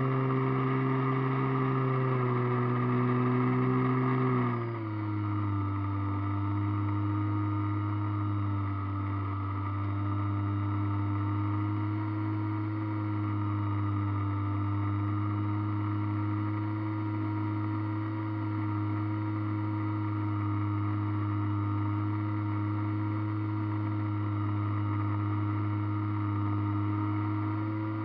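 Radio-controlled model airplane's motor and propeller running, heard on board as a steady pitched drone. About four and a half seconds in the pitch drops as the throttle is eased back, then holds steady.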